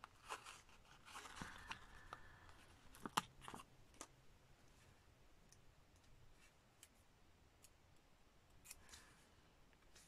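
Faint crinkling of a paper sticker sheet and small clicks as a sticker is peeled off with metal tweezers and placed on a planner page, the sharpest click about three seconds in, then mostly quiet.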